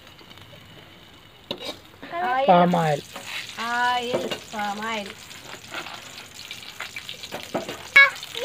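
Food frying with a faint sizzle while a steel spatula stirs and scrapes quail pieces in an aluminium pan, with a few sharp clicks of metal on metal. A woman's voice speaks briefly in short stretches, from about two seconds in and again near the end.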